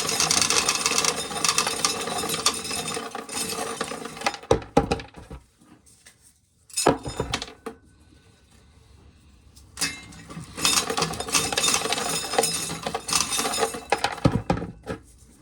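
Dried corn kernels being shelled off the cob and rattling down into an empty container: a dense run of clattering for the first few seconds, a pause with a few separate knocks, then another run of clattering late on.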